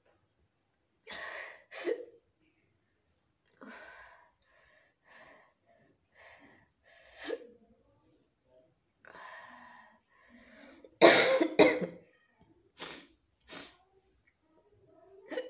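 A person coughing in short separate bursts, with the loudest and longest cough about eleven seconds in: a coughing fit from the burn of eating many hot chillies.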